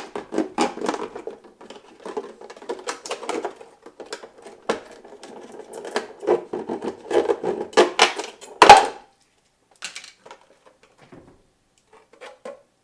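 Serrated knife sawing into a juice container in quick, irregular strokes, ending with one sharp crack about nine seconds in; after that only a few light clicks and taps.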